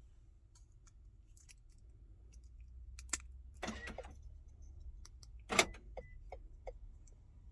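Car key fob being handled during a battery change: small clicks and light rattles. The loudest rattle comes about five and a half seconds in, followed by a few lighter ticks.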